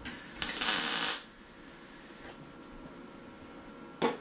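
Welder laying tack welds on a thin steel quarter panel: a crackling burst a little over a second long at the start, then a very short crackle near the end.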